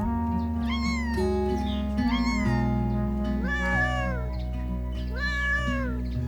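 Four cat meows, each rising then falling in pitch, over background music of sustained chords. The last two meows are longer and drawn out.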